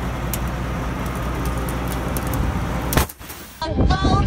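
John Deere S690 combine harvester's diesel engine running, a steady low rumble. It ends about three seconds in with a sharp click.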